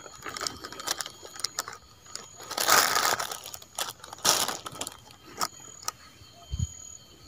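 Plastic carrier bag rustling and crinkling as it is handled, with scattered small clicks and taps. The loudest rustle comes about three seconds in and a shorter one just after four seconds.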